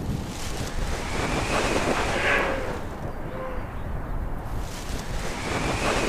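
Wind rushing and buffeting over an action camera's microphone, swelling about two seconds in and again near the end.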